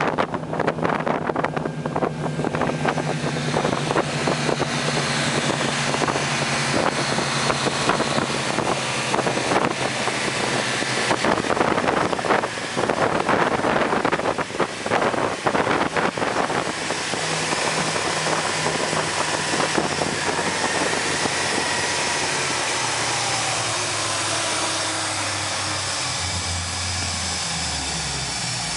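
Twin Mercury MerCruiser V8 sterndrive engines of a Donzi 33 ZX powerboat running under way, with wind buffeting the microphone and rushing water from the wake. After about 17 seconds the buffeting gives way to a smoother hiss, and over the last few seconds the engine note drops lower and steadier.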